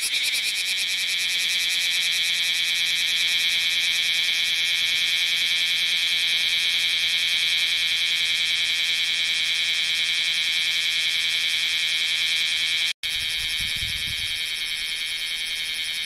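Bear cicada (kumazemi) singing: a loud, continuous, high rasping buzz with a fast even pulse. About thirteen seconds in it cuts out for an instant and comes back a little quieter.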